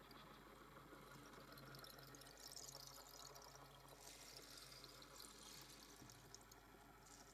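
Very quiet free improvisation: an electric violin bowed softly with scratchy, hissing noise textures that swell twice, over faint low held notes.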